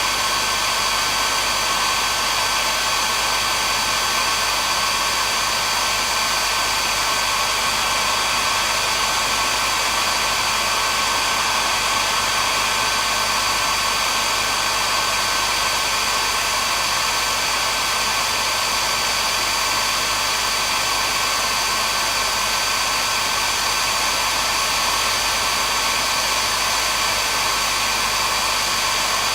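Hair dryer running steadily: a constant airy hiss with a high, even whine over it.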